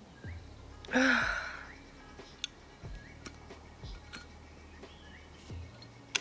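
A woman sighs heavily about a second in, a long breathy exhale with her voice in it. A few faint clicks follow while she lights a cigarette, and there is a sharper click near the end.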